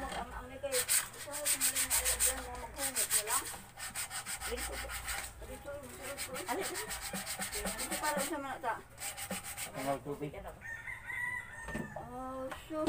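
Sandpaper rubbed by hand over a wooden frame in quick back-and-forth strokes. A rooster crows in the background, most clearly in the second half.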